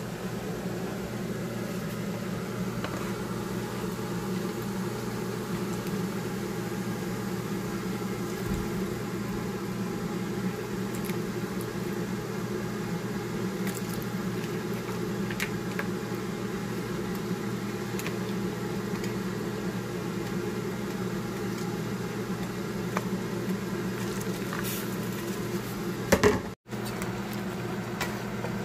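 Steady low mechanical hum of a running motor, with a few faint light clicks and one brief louder knock near the end.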